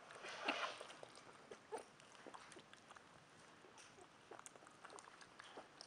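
A young porcupine chewing and gnawing a piece of fruit: faint, irregular small crunches and clicks of its teeth, with one louder, longer crunch about half a second in.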